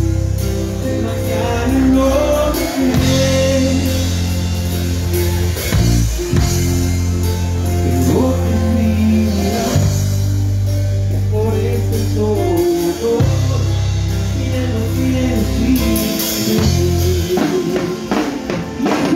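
A live band playing through a stage sound system: a drum kit under long held bass notes and a shifting melody line.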